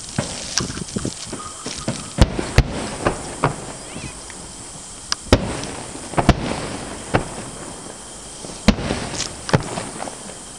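Aerial firework shells bursting: a string of sharp booms at irregular intervals of a second or more, with lighter cracks in between.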